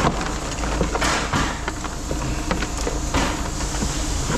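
Scattered knocks and clanks of scrap being handled over a steady low rumble, with a sharper hit at the start and another at the end.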